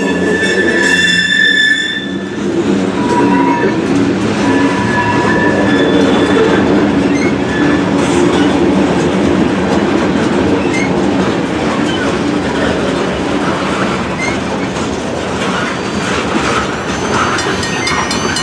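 Freight train of covered hopper cars rolling past at close range, steel wheels on the rails giving a steady rumble and clatter. High wheel squeal rings out in the first couple of seconds, with a few short squeals later.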